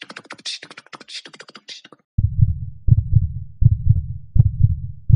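A run of quick, sharp clicking, scratchy sounds for about two seconds. Then a heartbeat sound effect starts: low double thumps repeating about every three quarters of a second.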